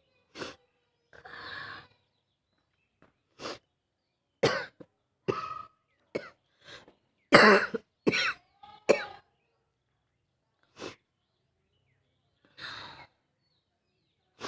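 A person coughing in about a dozen short, sharp coughs, spread out with pauses, the loudest cluster about halfway through, and a couple of longer, breathy sounds near the start and near the end. The speaker puts the coughing down to a bad cold and a burning throat.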